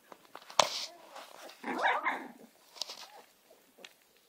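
Young American Staffordshire terrier puppies whimpering, with a short burst of squealing cries just before the middle. A sharp knock comes about half a second in.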